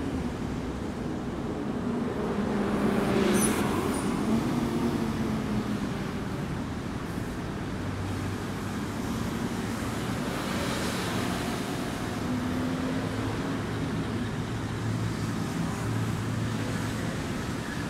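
Road traffic: motor vehicles driving past in a steady stream. One goes by louder about three seconds in, and another passes around ten seconds in.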